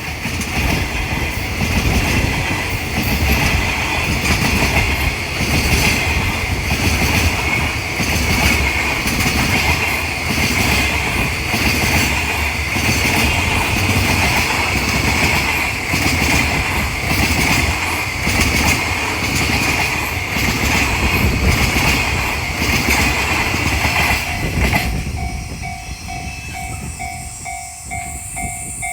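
Freight train of Chiki flat wagons hauled by an EF210 electric locomotive passing over a level crossing, its wheels clattering over rail joints in a steady rhythm. About 25 seconds in the train noise falls away and the crossing's warning bell is left ringing, a repeating pulsed tone.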